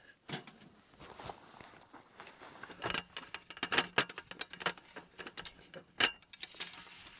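A folding camp table being set up: the wooden slats of its top and its metal legs clicking and knocking together, busiest in the middle, with one sharp snap about six seconds in.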